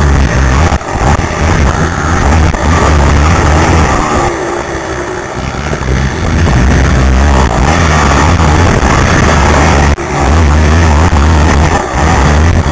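Racing quad's engine at hard throttle, loud and overloading the microphone, with brief drops about a second in and near ten seconds, and a longer easing off about four to six seconds in before it pulls hard again.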